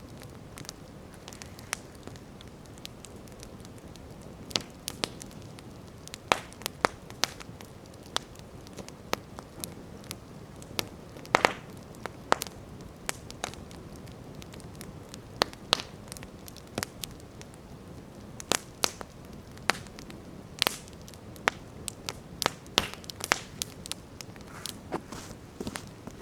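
Wood campfire burning, crackling and popping irregularly over a low steady rush of flames, with a few sharper, louder pops along the way.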